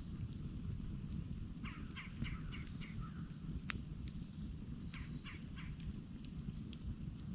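Campfire crackling with scattered sharp pops over a steady low rumble. About two seconds in a bird calls a quick run of about six short notes, and again with three notes around five seconds.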